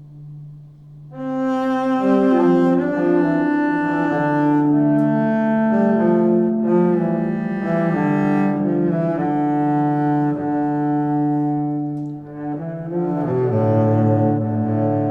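Background music: a slow melody of long held notes on low bowed strings, swelling in about a second in.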